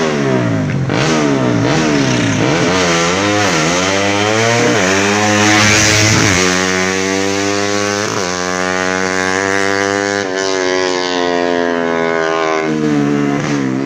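Yamaha Jupiter Z single-cylinder four-stroke engine, bored out to 125 cc for racing, being revved: a run of quick throttle blips in the first few seconds, then a climb to high revs held with a few brief dips, easing off near the end.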